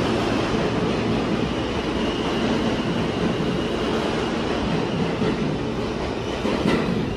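R160 subway train pulling out of the station along the platform: a steady, loud rumble of wheels and cars on the rails, with a faint thin high tone in the middle of the run.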